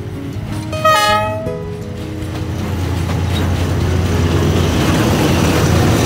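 A diesel locomotive's horn sounds one short blast about a second in, then the rumble and wheel noise of a passenger train passing grows steadily louder.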